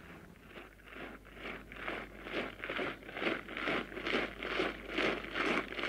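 Rhythmic crunching, about two to three strokes a second, starting faint and growing steadily louder.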